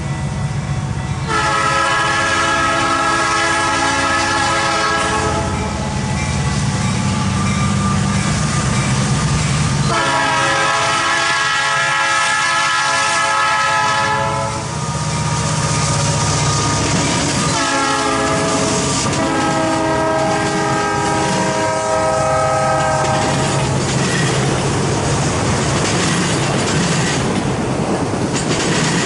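Canadian Pacific SD60 diesel locomotive sounding its horn in four blasts, long, long, short, long, the standard warning for a grade crossing, over the steady rumble of the diesel engines. Near the end the autorack cars roll past with wheels clicking over the rail joints.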